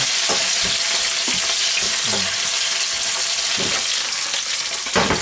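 Sliced onions sizzling in hot oil in a wok, stirred with a spatula that knocks and scrapes against the pan several times, with one louder knock near the end.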